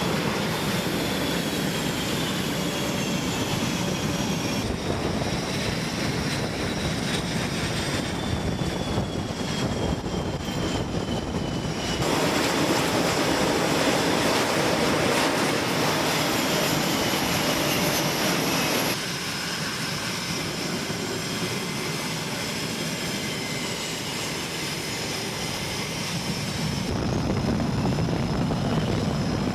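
Aircraft engines running, heard across several spliced clips, with high whining tones that slowly rise and fall over a steady rush. The sound changes abruptly every few seconds where the clips are cut together.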